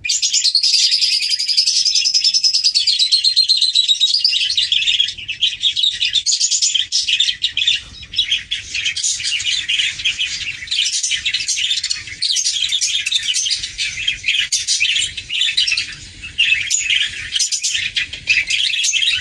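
Recording of many small birds chirping and twittering together: a dense, unbroken chorus of high calls, with a long falling whistled phrase in the first few seconds.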